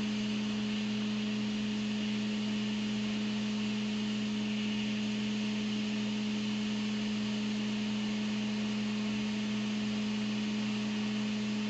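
Hot air rework station blowing steadily while desoldering an old LCD connector from a logic board: a constant blower hum with an airy hiss.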